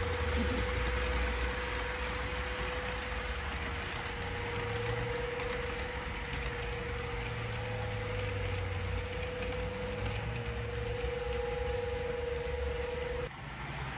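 A rake of 00 gauge model TEA tank wagons rolling along the track: a steady rumble of wheels on rail with a steady whine over it, which cuts off suddenly near the end.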